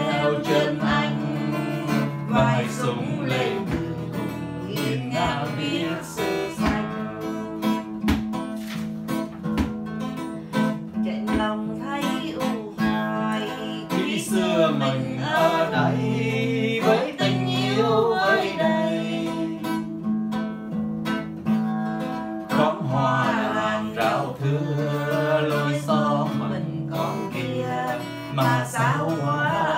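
Acoustic guitar strummed steadily as accompaniment, with a voice singing along over it in places, mostly in the middle and latter part.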